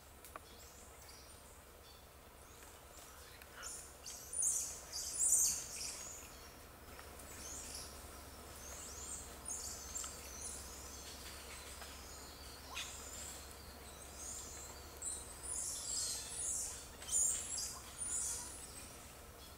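Clusters of thin, high-pitched chirping and squeaking calls, loudest about four to six seconds in and again near the end, over a faint steady low hum.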